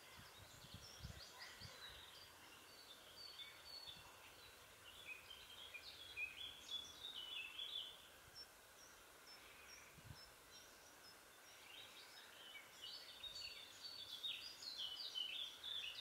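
Faint birdsong: quick series of high chirping notes that step down in pitch, in two fuller bursts about seven seconds apart, the second near the end.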